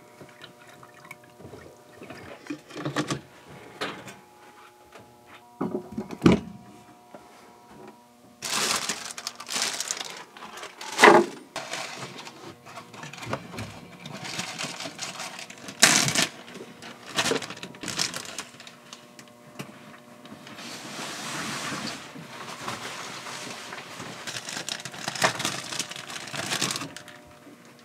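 Things being handled, with irregular knocks and clatters and a stretch of steady hiss in the later part, over a faint steady hum.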